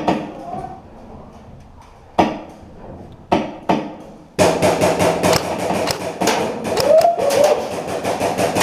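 Airsoft guns firing: a few single sharp shots a second or so apart, then from about four seconds in a rapid string of shots, several a second, running to the end.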